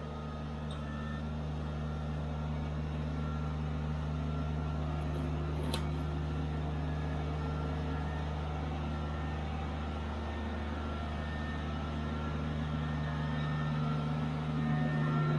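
Subcompact tractor engine running steadily under light work, with an even low hum that holds its pitch. There is a single sharp click about six seconds in.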